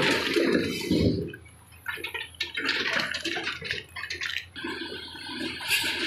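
Crawler excavator tipping a bucketful of broken quarry stone into a dump truck's steel bed: rocks crashing and rattling down in two spells, with a short lull about a second and a half in. Toward the end a steadier machine sound, the excavator running, takes over.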